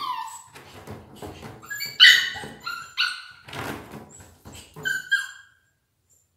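Pomeranian puppy barking in a run of short, high-pitched yips, stopping about five and a half seconds in.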